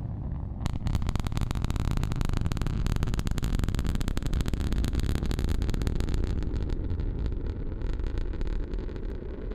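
SpaceX Super Heavy rocket booster's engines firing: a deep, steady rumble with dense crackling that thickens about half a second in and eases slightly near the end.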